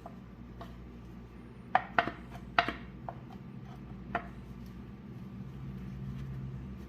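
Hand tools clinking against engine metal during a teardown: three sharp metallic clinks close together about two seconds in and one more about four seconds in, over a steady low hum.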